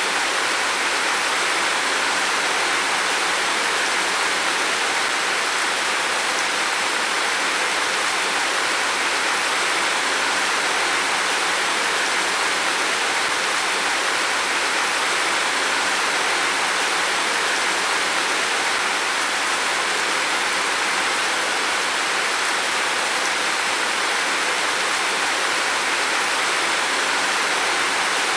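Heavy rain falling steadily on a roof, a dense, even hiss with no single drops standing out.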